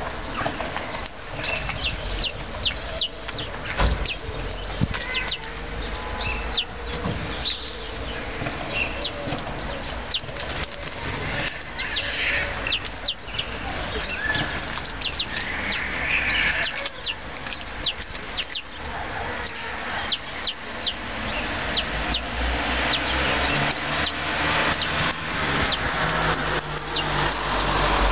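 Small songbirds chirping in short, frequent calls around a balcony seed feeder, with sharp clicks of beaks picking at sunflower seeds in the plastic tray.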